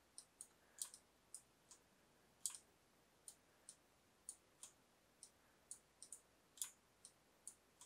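Faint, irregular clicking of a computer mouse and keyboard, about twenty short clicks, some in quick pairs, as leaf shapes are selected, copied and dragged in a drawing program.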